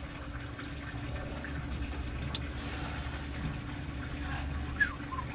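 A steady low hum, with a sharp click about two seconds in and a few fainter ticks.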